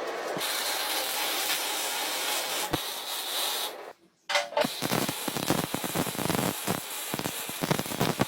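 A steady hissing spray for about four seconds, then, after a brief break, quick irregular scraping or rubbing strokes.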